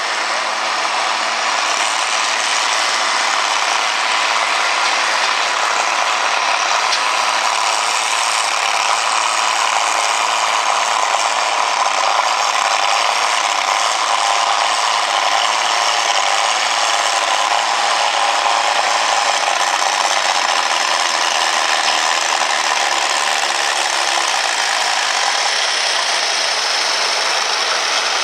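Antique farm tractor engine running steadily under heavy load while pulling a weight-transfer sled down the track.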